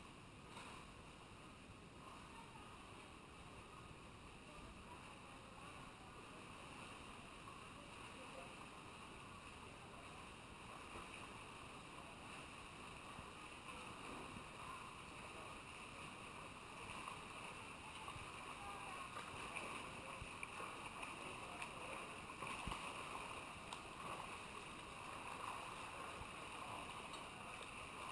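Faint splashing of several swimmers doing front crawl, slowly growing louder as they swim closer.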